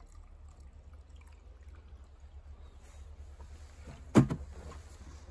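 A single sharp thump about four seconds in, over a steady low rumble.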